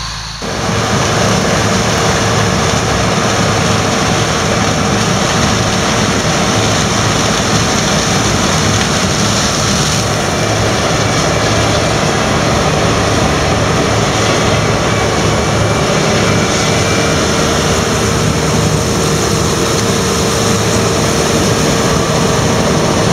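Combine harvester running: a loud, steady drone with a constant whine, beginning abruptly about half a second in.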